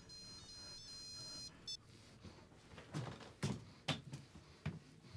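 High electronic beeping alarm tones that step in pitch and cut off about a second and a half in, followed by a few short, sharp bursts of noise.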